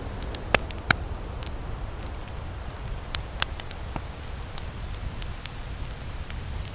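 Campfire crackling, with scattered sharp pops (the loudest two about half a second and a second in) over a steady low rushing background.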